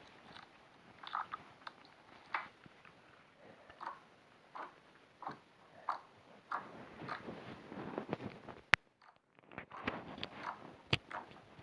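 Slime being worked by hand: irregular squishing and crackling with small pops. A sharp click comes about nine seconds in, followed by a brief gap before the crackling resumes.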